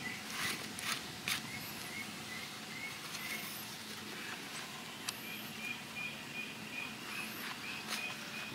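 Soft clicks and rustles of a pigeon being handled. A repeated high chirp, about four a second, comes in two spells behind them.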